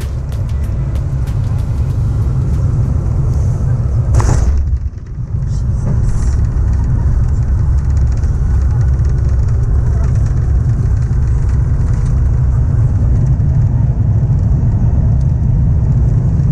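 Cabin noise in an Airbus A350-1000 during landing: a steady low rumble of engines and airflow. About four seconds in, a short sharp burst marks the main wheels touching down, followed by the steady rumble of the landing roll.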